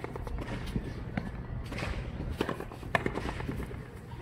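Frontenis rally: the small rubber ball cracking off racket strings and smacking against the concrete fronton wall, a series of sharp impacts roughly every half second.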